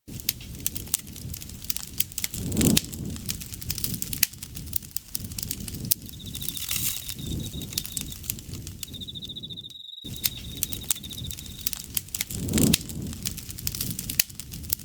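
Wood campfire crackling with many sharp pops and ticks, flaring louder twice. Through the middle an insect trills at a steady high pitch, breaking off briefly.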